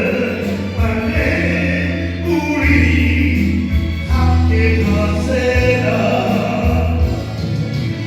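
Music: a slow Korean song with singing over accompaniment, in a passage of held notes between sung lines.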